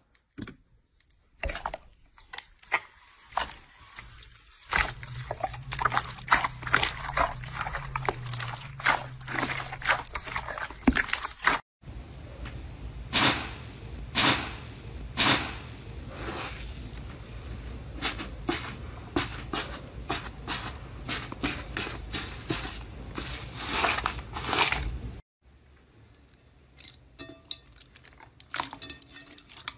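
Hands pressing and squeezing slime in a bowl, giving dense runs of crackling, squelching clicks and pops. In the middle stretch a blue iceberg slime is pressed by hand and crackles loudly. Near the end, clear slime is squeezed with quieter, sparser wet pops.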